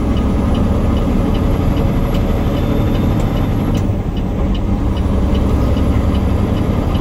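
Peterbilt 389 semi truck under way, its engine and road noise a steady drone inside the cab, with a light tick about twice a second.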